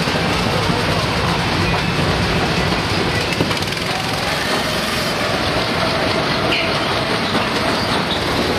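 Go-karts running laps of a covered fairground kart track, a steady loud din.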